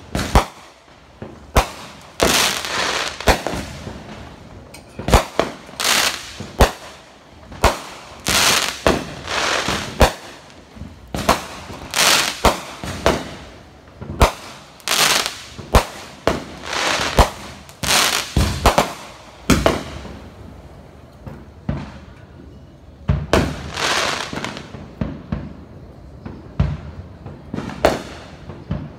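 Fireworks going off: a long run of sharp bangs, often several a second, many trailing off in about a second of noisy hiss. They thin to a few scattered pops past the middle, then pick up again.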